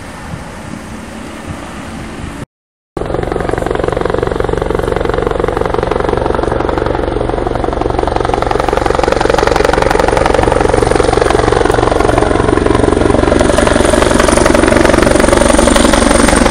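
Air ambulance helicopter flying overhead, a rapid rotor beat with a thin high whine, growing steadily louder as it approaches. It is fainter before a brief break in the sound about two and a half seconds in.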